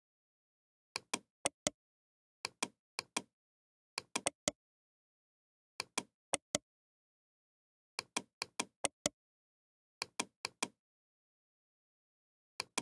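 Sharp clicks from someone working at a computer, in quick runs of three to six with pauses between, about seven runs in all, with dead silence between them.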